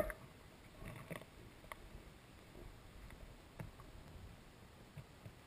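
Faint underwater noise from a submerged camera: a low, steady wash with a short knock right at the start and a few soft clicks scattered through.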